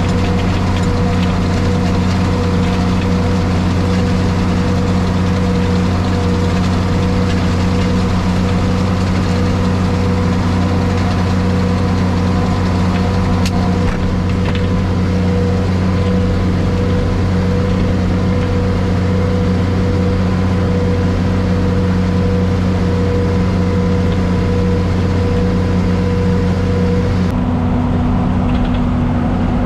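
Tractor engine running steadily while pulling a round baler through hay. Near the end the hiss drops away and the hum steps slightly higher.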